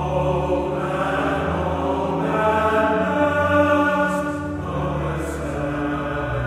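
Men's choir singing slowly in long held chords, the notes changing about once a second.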